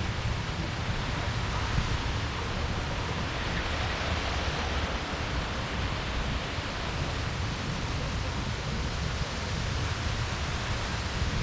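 Steady rushing outdoor background noise with a ragged low rumble underneath.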